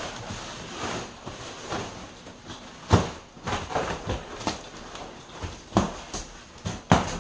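Plastic wrapping on sofa pieces rustling and crackling as they are handled, with a few sharp knocks, the loudest about three seconds in and just before the end.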